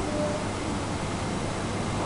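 Steady hiss of background room noise, with no distinct events.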